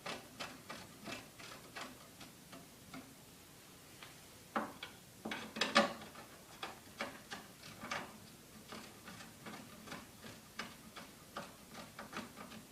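Paramotor cage side poles being handled and screwed into their threaded sockets: an irregular run of light clicks and taps, with a few louder knocks about five seconds in.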